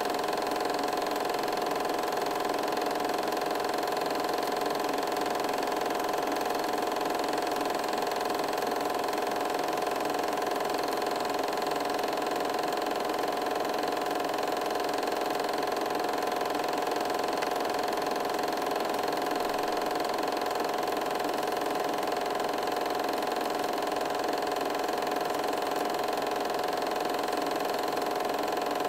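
8mm film projector running: a steady mechanical whir with constant hum tones that does not change as the pictures change.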